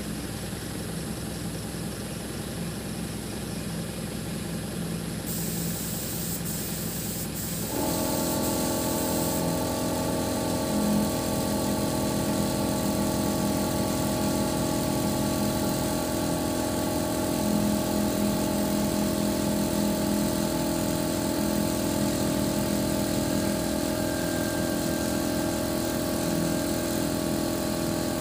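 Truck-mounted boom lift's engine running steadily. About eight seconds in, a steady multi-tone whine joins it and holds: the hydraulics driving the boom.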